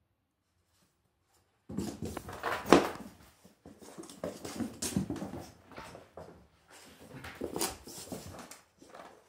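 A black cat and an orange tabby cat tussling in a play fight: irregular scuffling and bumping that starts suddenly about two seconds in and is loudest a little before three seconds in.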